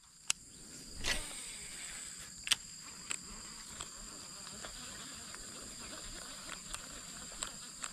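Steady high-pitched drone of insects in two bands, with scattered sharp clicks and ticks, the loudest just after the start and about two and a half seconds in, and a brief rustle about a second in.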